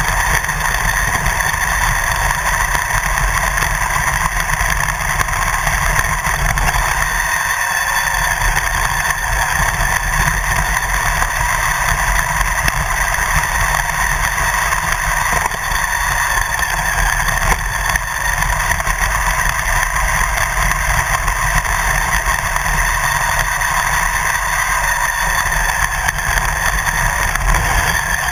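Radio-controlled car running across rough grass, heard from a camera mounted on the car: steady motor and running noise over a low rumble, with a brief dip in the rumble about seven seconds in.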